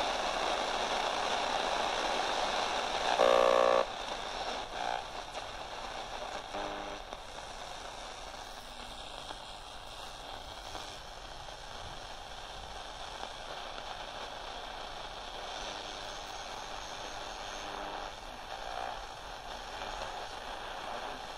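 Aiwa RS-44 pocket radio's speaker hissing with static as the tuning dial is swept between stations, with short snatches of stations breaking through. The loudest is a brief burst about three seconds in.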